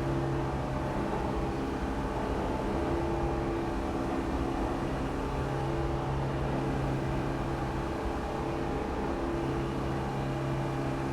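New York City subway station ambience: a steady mechanical rumble and hiss with a low hum that fades out and back in every few seconds.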